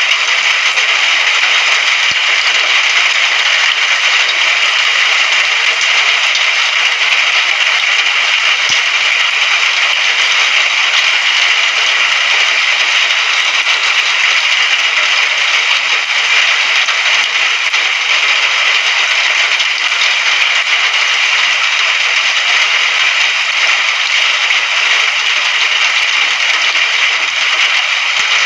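Steady rain falling: an even, unbroken hiss of drops at a constant level.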